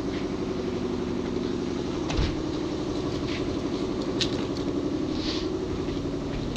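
Chevy Tahoe's V8 engine idling steadily, with a single dull thump about two seconds in and a few light clicks.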